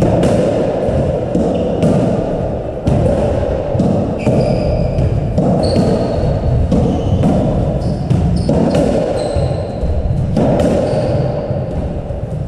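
Squash rally: the ball cracking off rackets and the court walls in irregular hits, with short high sneaker squeaks on the wooden floor, over a steady background noise in the enclosed court.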